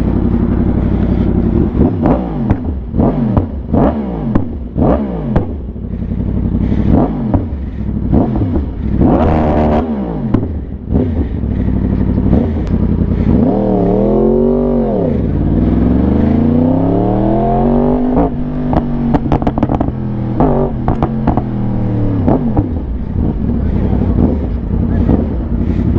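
Yamaha R1 sportbike's inline-four engine revving in a series of quick throttle blips, then a longer rev that climbs and falls away as the bike pulls off, over a steady low rumble.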